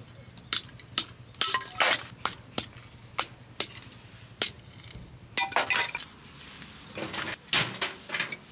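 A string of irregular sharp clinks and knocks of hard objects, with a few short rasping scrapes in between.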